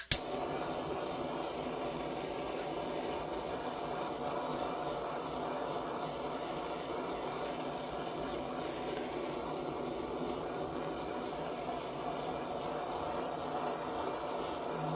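Handheld butane torch lit with a click, then a steady hissing flame, heating a sterling silver ring so the solder flows.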